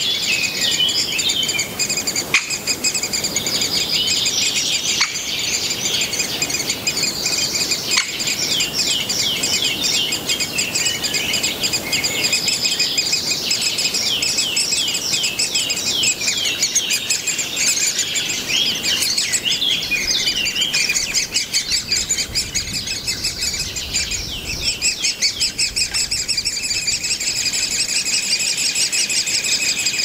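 Great spotted woodpecker nestlings begging from inside the nest hole: a continuous, high-pitched chatter of rapid calls that never pauses, with a run of quicker, sharper notes in the middle.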